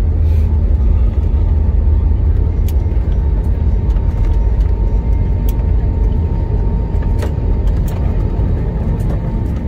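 Inside the cabin of an IndiGo Airbus A320-family airliner during its landing roll on the runway: a steady deep rumble of engines and wheels, with scattered light clicks and rattles, easing slightly near the end.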